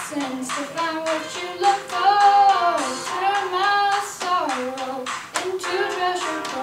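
A young woman singing solo, holding long notes and sliding between them.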